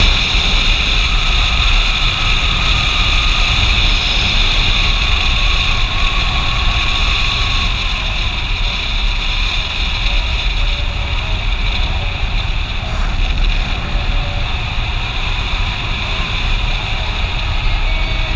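Motorcycle riding at speed: heavy wind rumble on the microphone over the steady engine and road noise.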